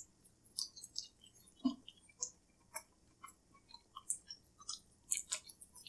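Faint, irregular clicks and smacks of chewing: people eating chicken wings.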